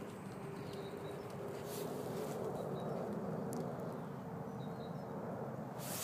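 Outdoor ambience: small birds chirping briefly now and then over a steady low hum.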